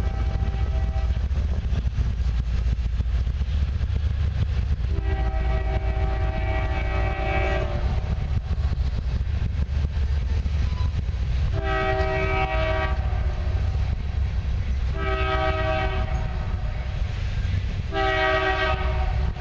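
An empty coal train of hopper cars rolling past with a steady low rumble and wheel clatter. Over it, a locomotive's multi-note air horn sounds in separate blasts: one ending about a second in, a long one about five seconds in, then three shorter ones.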